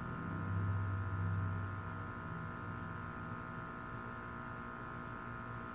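Steady high-pitched trilling of crickets in a night chorus, with a low hum from the end of the background music in the first second or two.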